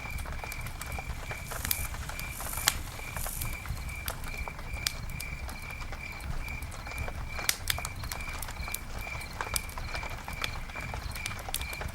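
Campfire burning with irregular sharp crackles and pops over a low rumble, with a short hiss about two seconds in. A high chirp repeats steadily about two or three times a second.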